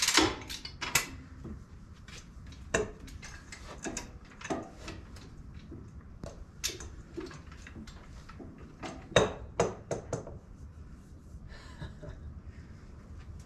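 Metal tools and parts clinking and clanking, picked up and set down one after another, with a louder knock about nine seconds in.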